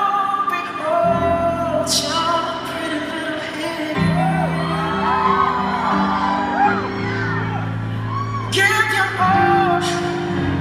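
Live pop concert: a male singer singing into a microphone over held keyboard and bass chords, heard from within the audience. The crowd screams and cheers in short bursts about two seconds in and again near the end.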